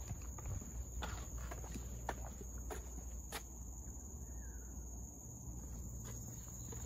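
Footsteps, an irregular run of light steps for the first three seconds or so, then fewer. Under them is a steady high-pitched drone of insects.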